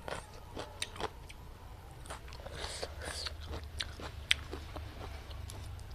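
Close-up eating sounds: a person chewing and biting food, with many short wet mouth clicks and smacks, the sharpest about four seconds in.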